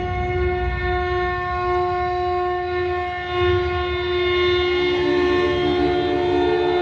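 Horns sounding long, steady held notes, with a second, lower note joining about five seconds in, over a low background rumble.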